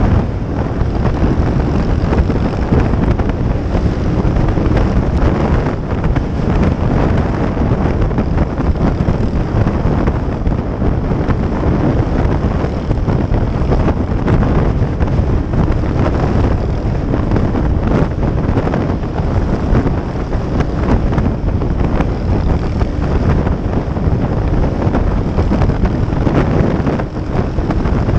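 Heavy wind noise on a camera microphone at riding speed, over the steady running of a small single-cylinder pit bike engine.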